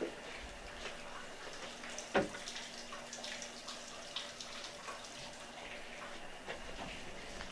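Footsteps crunching on scattered plaster debris, with irregular small clicks and one louder knock about two seconds in, over a faint steady hum.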